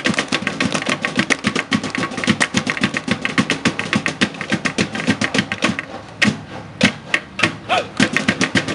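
Samoan slap dance (fa'ataupati): several men clapping and slapping their bodies, thighs and feet in a fast, dense rhythm of sharp smacks, thinning briefly about six seconds in before picking up again.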